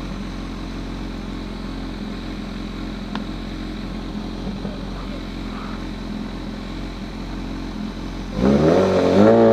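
Honda CB1000R's inline-four engine running steadily at low revs. About eight and a half seconds in it is revved hard and loud, the pitch rising and falling.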